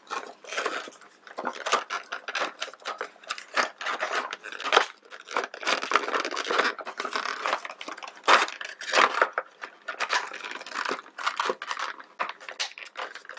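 Clear plastic toy packaging and a cardboard tray crinkling, crackling and scraping in quick, irregular bursts as pieces are handled and pulled out.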